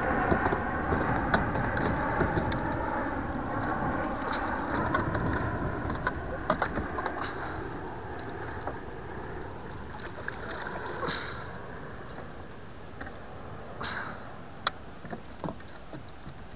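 Rushing, sloshing water noise around a plastic fishing kayak, loudest in the first half and fading after, with scattered knocks and clicks of gear against the hull as a musky is fought alongside.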